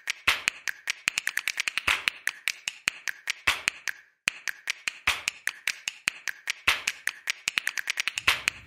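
Rapid, irregular clicking and tapping, about ten sharp clicks a second, with a short break about four seconds in: water slapping against an action camera's waterproof housing held at the lake's surface.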